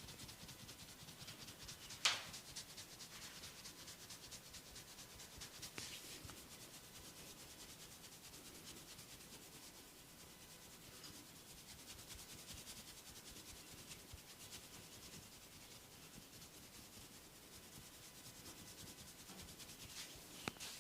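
A barber's hands rubbing and scratching a client's hair and scalp during a head massage: a faint, continuous scratchy rustle with fine crackles. A sharp snap comes about two seconds in, and smaller snaps come near the end.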